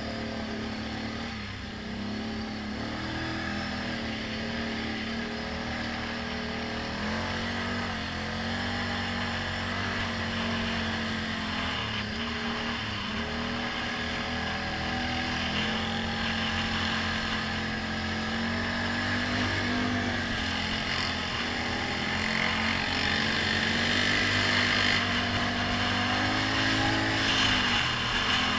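ATV engine running under constantly changing throttle, its pitch rising and falling every few seconds as the rider accelerates and eases off, heard from a mount on the machine itself; it grows a little louder toward the end.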